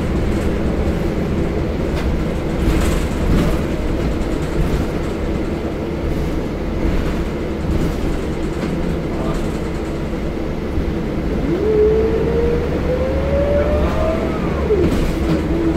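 Scania L94UB bus's nine-litre five-cylinder diesel and drivetrain heard from inside the passenger saloon, running with a steady low rumble and some light rattles. About two-thirds of the way through, a whine rises in pitch as the bus accelerates, then drops sharply at a gear change and starts climbing again.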